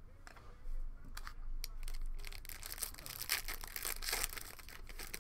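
Foil wrapper of a trading-card pack being crinkled and torn open: a few sharp crackles, then dense crinkling that grows louder about two seconds in.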